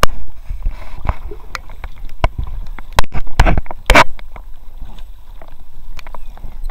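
Paddle knocking against an inflatable kayak and splashing in fast-flowing water: irregular sharp knocks and thuds, loudest about three to four seconds in, over a low rumble.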